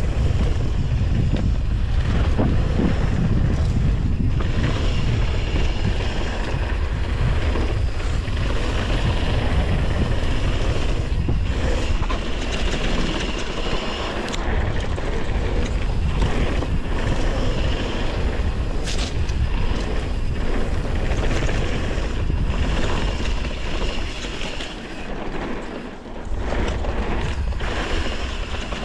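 Wind buffeting the microphone of a camera on a mountain bike descending a downhill trail, over tyre noise on dirt and scattered knocks and rattles from the bumps. The rush dips briefly near the end.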